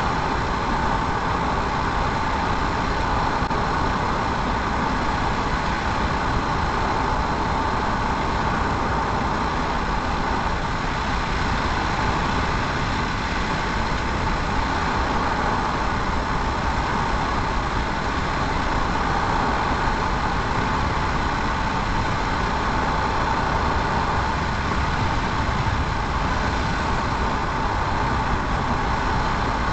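Steady road noise of a car driving at highway speed: tyre roar on asphalt and engine hum, heard from inside the cabin.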